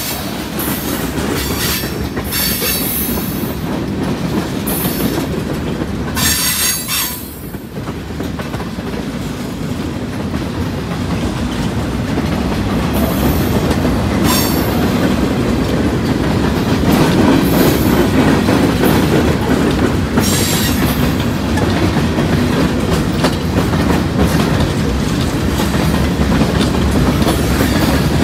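Freight train's covered hoppers and boxcars rolling past close by: a steady rumble of steel wheels on rail with clicking over the joints. High wheel squeals come and go a few times.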